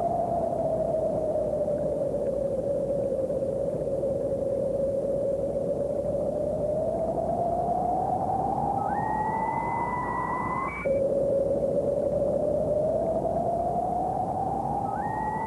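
Eerie electronic tones from an animated short's soundtrack, over a steady hiss. A low wavering tone slowly sinks and then rises, and a higher tone joins and holds. About eleven seconds in it all cuts off abruptly, and the low tone starts again and climbs, with the higher tone returning near the end.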